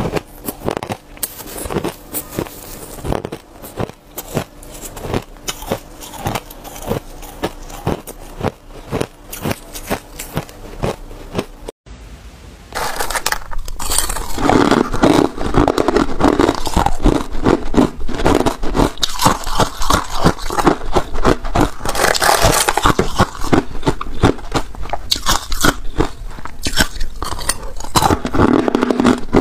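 Close-miked crunching of ice being bitten and chewed: dense, irregular cracks. About twelve seconds in, the sound cuts to much louder crunching of crushed ice.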